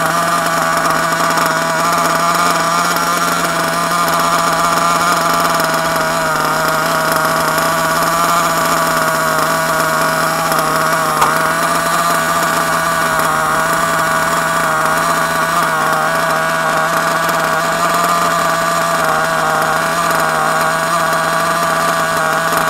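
Nitro RC buggy's small glow-fuel engine idling steadily at an even, unchanging pitch.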